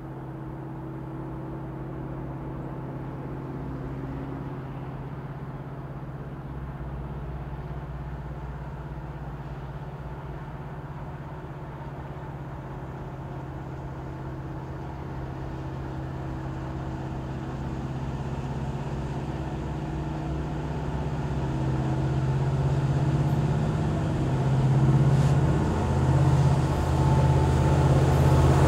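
Diesel engines of an approaching Norfolk Southern freight train led by EMD SD70ACe and SD70M-2 locomotives, a steady low drone growing louder as the locomotives draw near, wavering a little in the last few seconds.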